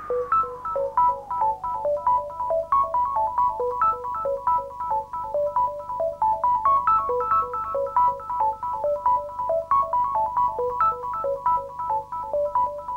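Electronic music: a synthesizer plays a fast repeating pattern of short, bright notes, about four a second, as a falling swoop dies away at the start.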